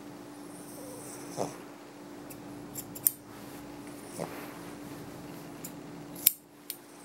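Grooming shears snipping through a dog's facial and ear hair: several sharp, irregularly spaced snips, two of them louder, over a steady low hum.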